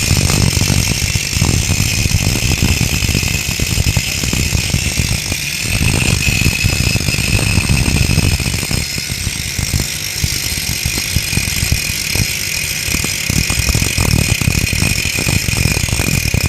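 Car brakes squealing: a steady high-pitched squeal over the rumble of the car rolling, the noise of worn or glazed brake pads.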